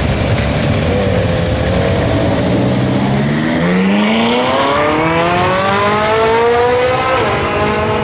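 Ferrari 458 Italia's V8 pulling away: low and even for the first few seconds, then revs climbing steadily for about four seconds, with a sudden drop in pitch near the end as it shifts up.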